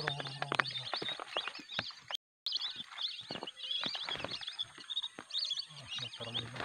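A chorus of whistling-duck calls: many high, squeaky whistled notes overlapping throughout, with scattered short clicks. The sound cuts out completely for a moment just after two seconds.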